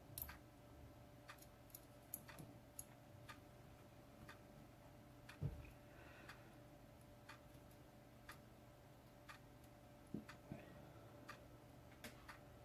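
Near silence in a quiet room with a clock ticking faintly, about once a second. A soft knock comes about halfway through.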